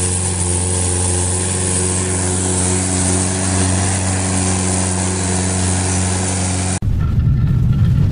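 Mahindra 575 DI tractor's four-cylinder diesel engine running at a steady pitch under heavy load, pulling a loaded sugarcane trolley. Near the end it cuts off suddenly and a different low rumble takes over.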